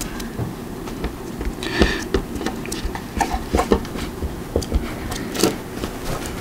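Hands working a self-adhesive strip: irregular rustles, light taps and clicks as the tape is pulled out and pressed down, with a brief crinkly rustle about two seconds in.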